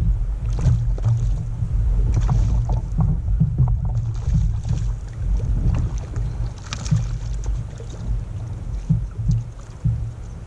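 Steady low rumble of water and wind around a fishing kayak, with scattered small knocks and splashes as a hooked bass is brought in.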